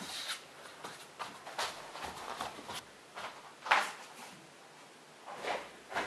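A person moving about quietly indoors: faint rustles, shuffles and light knocks, the loudest a little past halfway.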